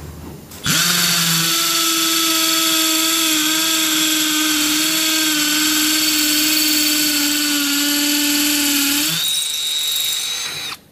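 Milwaukee M12 FPD brushless hammer drill in hammer mode, boring an 8 mm hole into a concrete block. It starts about a second in and runs steadily under load for about eight seconds. Near the end its sound turns thinner and higher, and then it stops.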